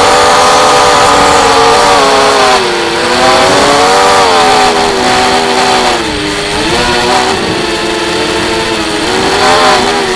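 Brushless motors of a 250-size FPV race drone (Emax 1806 on 3S, spinning 5x3 props), close to the onboard camera: a high motor whine over a rush of air. The pitch holds steady for the first couple of seconds, then dips and climbs again several times as the throttle is worked.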